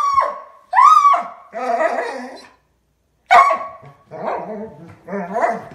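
Pet dog howling in a run of about six short calls with brief gaps between them. Each call starts sharp and loud with a quick rise and fall in pitch, and some trail off into a rougher, wavering yowl.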